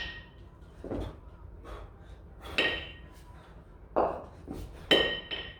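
A pair of 24 kg competition kettlebells knocking together three times, each knock leaving a brief metallic ring, during a long-cycle clean and jerk. Short, forceful exhalations from the lifter fall between the knocks.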